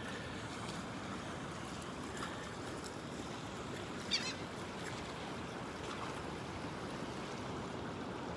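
Steady wash of surf on the beach, with a single short high bird call about four seconds in.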